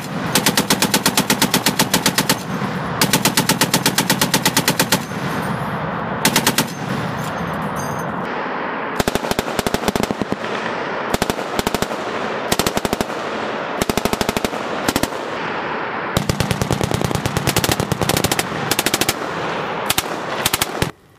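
Automatic fire from belt-fed machine guns. First comes a Browning M2 .50-calibre heavy machine gun in two long bursts of about two seconds each, then M249 light machine guns in many short bursts.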